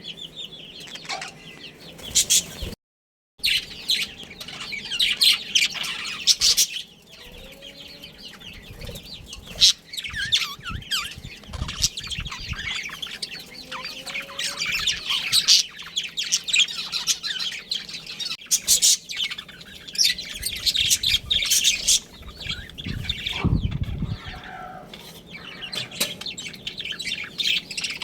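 Budgerigars chattering: a dense, continuous stream of rapid high-pitched chirps and warbles from several birds, with a few low flutters among them. The sound cuts out completely for about half a second near the start.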